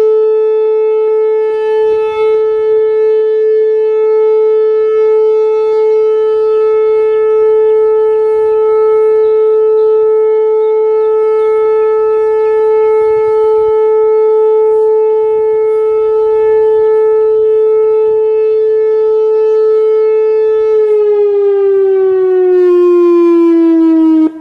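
Whelen 4004 electronic warning siren sounding a loud steady tone during a siren test. About three seconds from the end its pitch starts to fall as it winds down.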